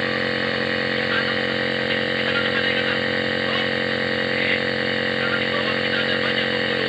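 A small electric motor running with a steady, even hum.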